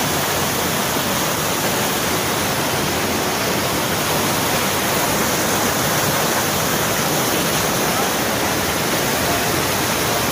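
Rushing water: a loud, steady, even noise with no break, as from heavy flowing floodwater or a torrent.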